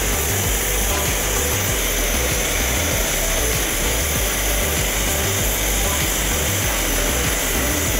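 Gas torch flame hissing steadily as it heats a radiator's top tank.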